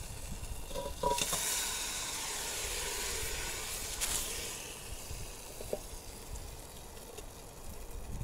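A short metallic clink as the hot billy can with the pie tin inside comes off the campfire, then a loud sizzling hiss that builds quickly and slowly dies away over several seconds.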